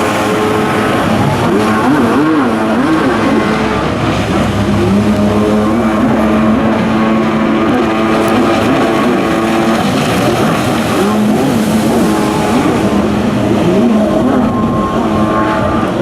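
Jet ski engines racing. Several overlap, their pitch rising and falling again and again as riders throttle on and off through the slalom turns.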